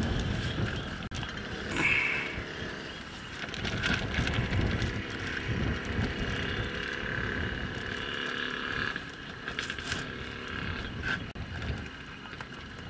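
Outdoor ambience: an uneven low wind rumble on the microphone, with a few faint high calls and thin whistling tones over it.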